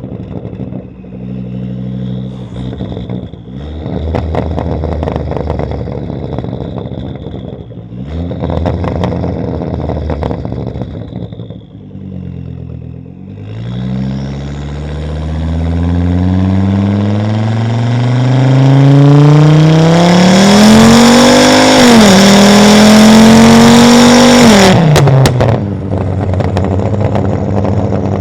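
Volvo S60 2.5T's turbocharged inline five-cylinder engine through a catless exhaust. It blips unevenly with crackles, then pulls hard with the pitch climbing steadily. There is a brief drop at a gear change about two-thirds through, a further climb, then a lift-off with a quick burst of pops before it settles to a steady lower note.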